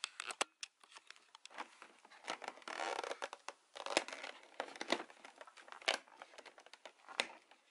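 Fingers picking at and tearing open a cardboard advent calendar door: irregular crinkling, tearing and small clicks of card.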